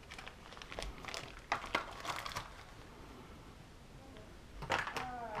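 Small handling noises: crinkling and light clicks as an item is worked in the hands, then a short clatter near the end as cleaning tools are picked out of a plastic organizer box.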